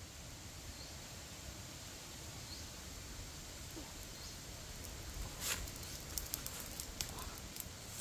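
Forest ambience with a steady low hiss and a faint, short high chirp every couple of seconds; from about five seconds in, a run of sharp crackling rustles and snaps of someone stepping through dry leaves and undergrowth.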